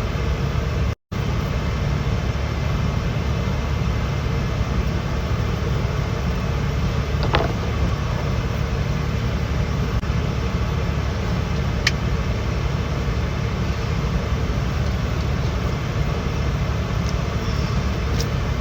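Steady rushing background noise, strongest in the low range, with a momentary dropout about a second in and a few faint clicks.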